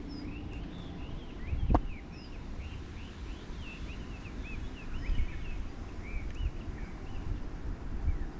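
Small birds chirping, many short rising-and-falling calls in quick succession over a low rumbling noise, with one sharp knock just under two seconds in.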